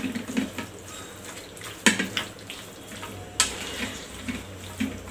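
A metal utensil scrapes and turns raw chicken pieces in a steel plate, with wet squishing of the meat as turmeric and salt are mixed in. Two sharp clinks of metal on the plate come about two seconds and three and a half seconds in.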